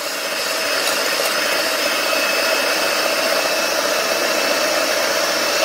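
Electric hand mixer running at a steady speed, its beaters whipping eggs and powdered sugar into a thick, pale batter. The motor gives an even whirr with a faint held whine.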